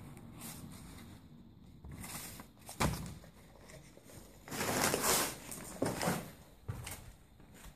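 Footsteps and rustling over a floor littered with papers and debris, with a single knock about three seconds in and a louder stretch of shuffling and crackling a little past halfway.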